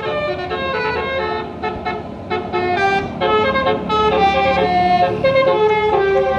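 A bus's 'basuri' telolet musical air horn playing a quick melody of short notes that step up and down in pitch, over a low rumble.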